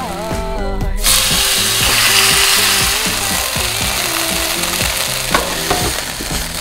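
Chicken breast strips sizzling as they are stir-fried in a frying pan. The sizzle starts suddenly about a second in, with background music underneath.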